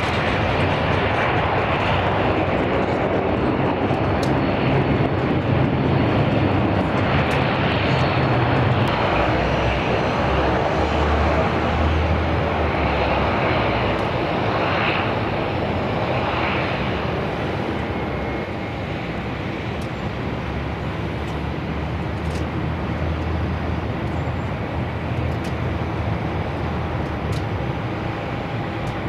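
Jet airliner engines running at high thrust: a steady loud roar, strongest in the first half and easing slightly later on.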